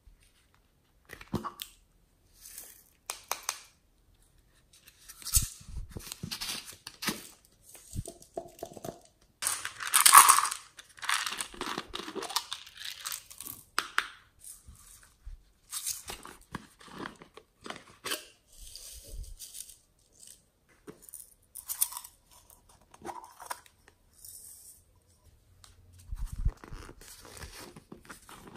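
Hands handling small plastic slime containers, twisting and opening their lids, and tipping glitter, sequins and plastic pearl beads into a glass tray: irregular clicks, rattles and rustling, loudest about ten seconds in.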